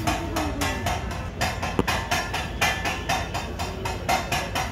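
Quick runs of metal clanks, several a second, from a steel spatula striking a flat iron tawa griddle at a pav bhaji stall, with a steady low hum underneath.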